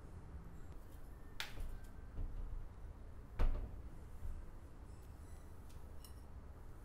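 A few light clicks and knocks of kitchen handling over a low room hum, the loudest a single knock about three and a half seconds in as a ceramic bowl is set down on a cloth-covered counter.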